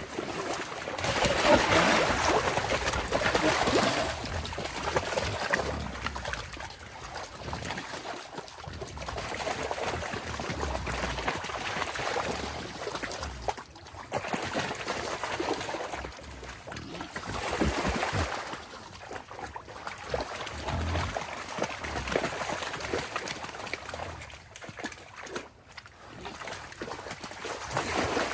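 Muddy water sloshing and splashing in uneven swells lasting a few seconds each.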